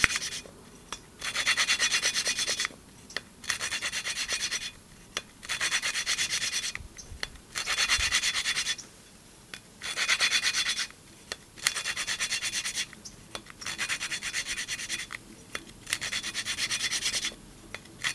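A GY6 150cc valve being lapped into its seat in the aluminium cylinder head with silicon carbide grinding compound, twisted back and forth by a pen glued to the valve head. It makes a gritty, fluttering rasp in about ten bursts of a second or so, with short pauses between. This is the grinding stage that wears a matching band into the valve face and seat.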